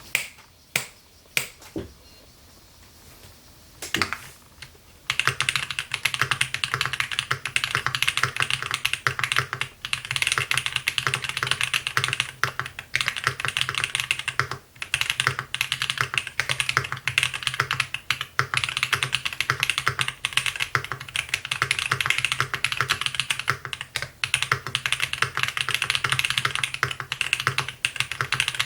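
Mechanical keyboard typing on a MODE 80 with lubed Polia Polar Panda tactile switches, an FR4 plate with plate foam and DCP keycaps. A few single keystrokes come first, then fast continuous typing from about five seconds in.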